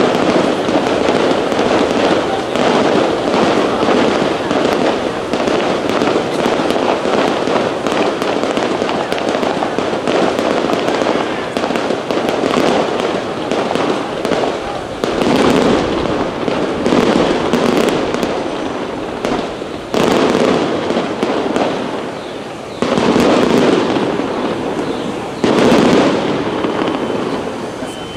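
Aerial fireworks display going off without pause: dense, rapid crackling and popping of shell bursts. Three sudden louder bursts come in the last third.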